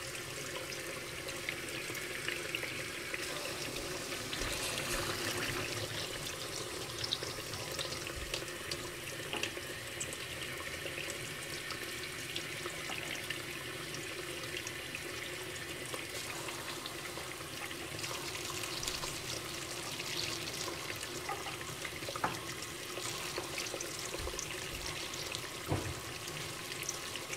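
Hot water running from a kitchen faucet whose aerator is submerged in a full bucket: a steady rush of water under water, with faint scattered crackles.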